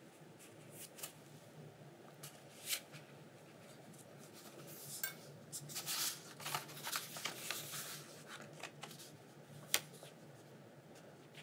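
A rolled sheet of paper is handled and unrolled in quiet room tone, giving scattered crinkles and rustles that are busiest from about five to eight seconds in.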